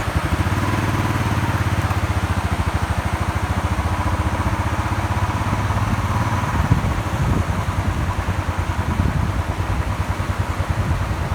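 A vehicle engine idling steadily with a fast, even pulse, coming in suddenly at the start.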